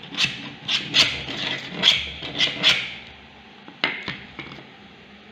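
Hand-powered, 3D-printed PLA mini drill with an Archimedes-screw drive being worked to bore through a piece of plastic: about six scratchy, clattering strokes over three seconds, then a sharp click about four seconds in.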